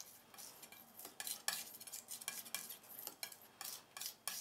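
Metal palette knife scraping and tapping on a palette while mixing paint: faint, irregular short scrapes and clicks, several a second.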